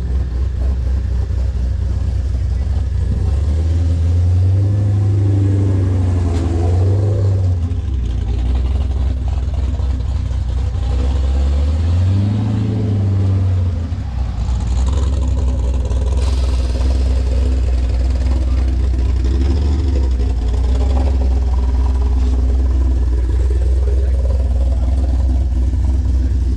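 A car engine running close by at a low, steady idle, revved up and held twice: about four seconds in for a few seconds, and again briefly about twelve seconds in.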